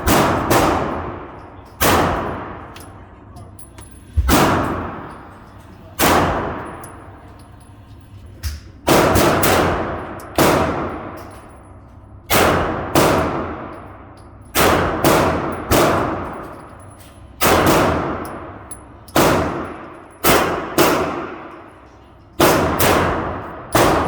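Glock 34 9mm pistol fired at a steady, unhurried pace: about twenty sharp shots spaced roughly half a second to two seconds apart, each followed by a long ringing decay.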